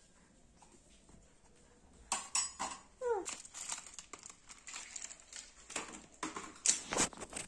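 Small items being handled, with irregular clicks and clinks starting about two seconds in and continuing, and one short falling squeal about three seconds in.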